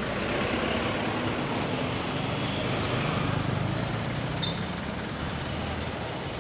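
Street traffic of cars, jeepneys and motorcycle tricycles passing close by, a steady mix of engines running and tyre noise. A short high-pitched squeal cuts through about four seconds in.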